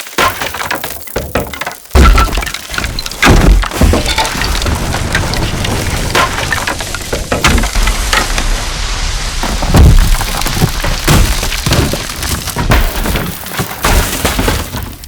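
Debris crashing down in a long, dense tumble of breaking and cracking, with a heavy crash about two seconds in and more heavy impacts through the middle.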